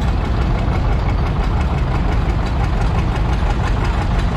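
Old Minneapolis-Moline farm tractor engines idling close by, a steady low-pitched run with evenly spaced firing pulses.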